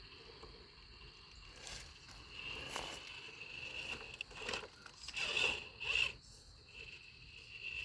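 RC rock crawler's electric motor and gear train whining in short bursts as the throttle is worked, with tyres scraping and crunching over rock.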